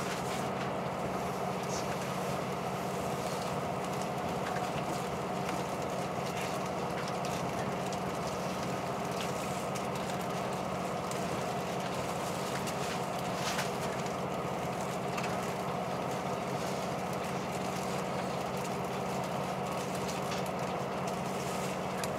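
Steady drone of a diesel railcar heard inside the passenger cabin, a low engine hum under an even rumble of running noise, with a few faint ticks.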